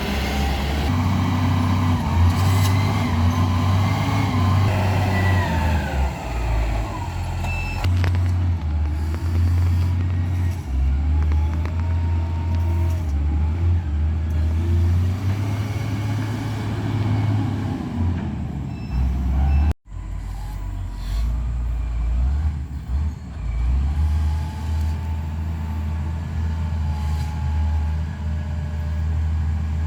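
Heavy diesel vehicle engines running at low revs with a deep steady rumble. The sound cuts out for an instant about two-thirds of the way through, then carries on.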